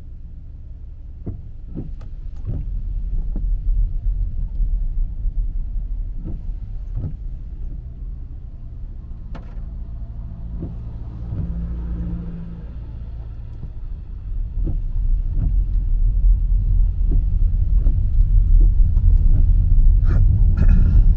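Car driving, with a steady low engine and road rumble and scattered short knocks and clicks. The rumble grows louder in the last few seconds.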